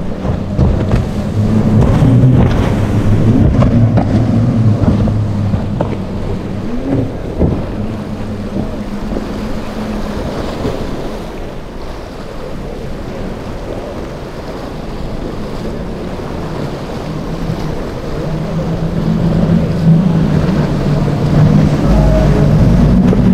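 Outboard engines of center-console powerboats running at speed through rough surf: one boat's engines hum loudly and fade after the first several seconds, leaving waves and wind gusting on the microphone, then a second boat's outboards grow louder near the end.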